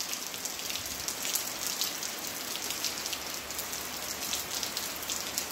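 Steady rain falling, many separate drop hits heard over an even hiss.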